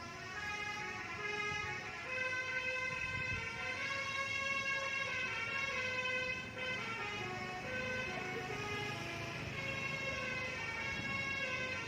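Telolet horn of a Sudiro Tungga Jaya bus, a multi-tone musical air horn, playing a tune of long held notes that shift in pitch.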